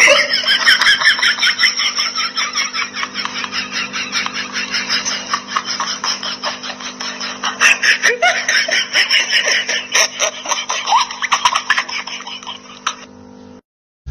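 A person laughing hard and without a break, in rapid bursts several times a second, over a steady low hum.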